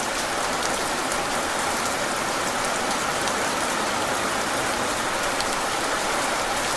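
Steady rain falling, an even hiss with individual drops ticking through it; no thunder in this stretch.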